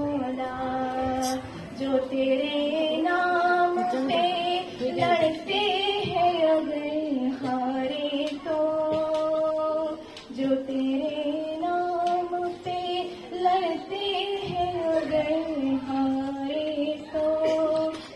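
A girl singing solo, holding long drawn-out notes that bend and glide in pitch, in the melody of an Urdu devotional prayer song (dua), with short breaks for breath.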